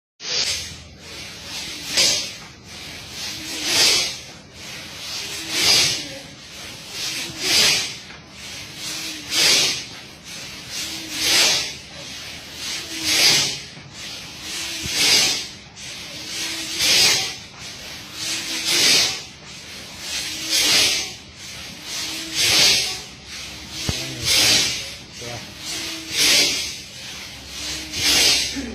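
A group of people making forceful, sneeze-like blasts of breath through the nose in unison, a rhythmic hissing rush about once every two seconds.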